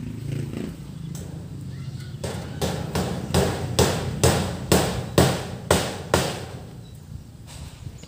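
A hammer striking nails: a run of about ten sharp blows, a little over two a second, starting about two seconds in and stopping around six seconds.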